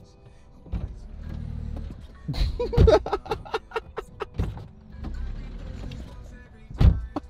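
A car's electric window motor runs twice, with sharp knocks and clunks against the door and glass between the runs. Music plays underneath.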